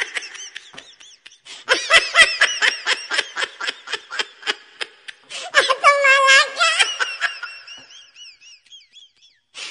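A baby laughing hard: a fast run of short, breathy giggles, then a high squealing laugh about halfway through that thins out into faint high squeaks.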